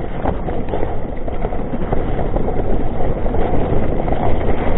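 Mountain bike riding down a trail running with water: a steady rough noise of tyres through water and mud, with many small rattles and knocks throughout.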